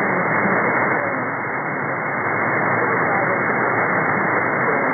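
Shortwave radio reception in upper sideband: a steady, muffled hiss of band noise from the receiver, with a weak voice from the pirate station faintly coming and going under it.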